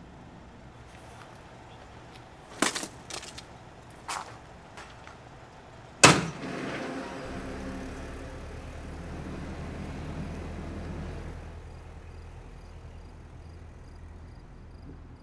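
A few sharp knocks, then a loud vehicle door slam about six seconds in, followed by a pickup truck's engine running as the truck drives off, fading away.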